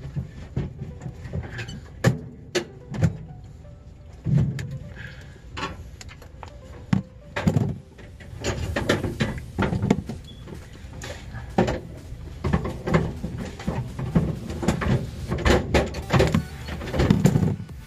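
Sharp clicks and knocks of pliers and hands working on wiring inside a freezer's sheet-metal cabinet, with background music.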